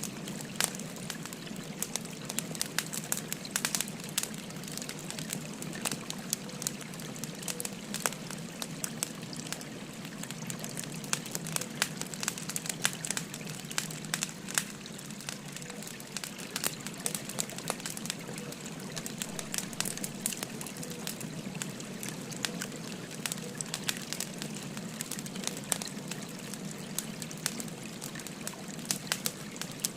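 Burning firewood crackling, with frequent irregular sharp pops, over the steady rush of a flowing stream.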